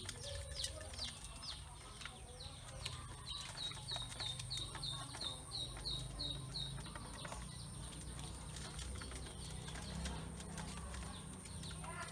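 Ducklings peeping: a run of short, falling high peeps, about three a second for a few seconds, with scattered light clicks of bills pecking feed off the metal bowl.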